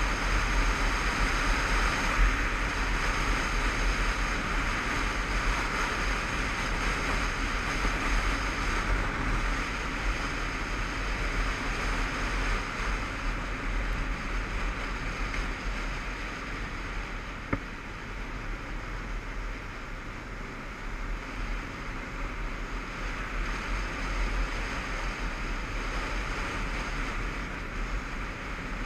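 Wind rushing over a motorcycle-mounted camera's microphone, with the Honda CBF500's parallel-twin engine and road noise running underneath as the bike rides along. A single brief click about two-thirds of the way in.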